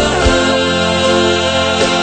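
Music: a song with sung vocals over instrumental backing.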